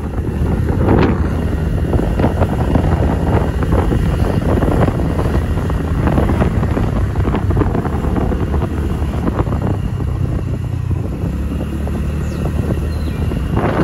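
Motorcycle engine running steadily while riding along, a constant low rumble with wind rushing over the microphone.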